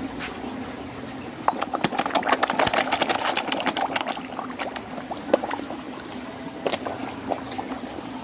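Carp at the water surface gulping and slurping with their mouths: many wet smacking pops crowd together from about a second and a half in, then thin out to a few scattered ones after about four seconds, over trickling water and a steady low hum.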